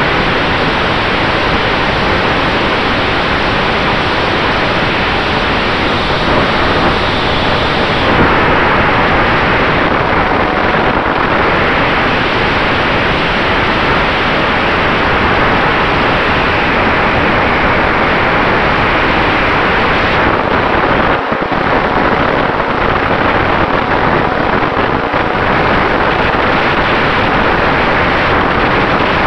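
Steady, loud wind rush from air streaming over the onboard camera of a flying E-flite P-47D RC model. A faint steady tone underneath comes from its brushless electric motor and propeller in flight.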